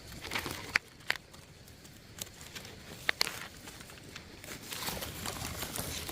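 Faint rustling of forest-floor leaf litter as wild mushrooms are picked, with a few sharp snaps or clicks, two of them close together about three seconds in.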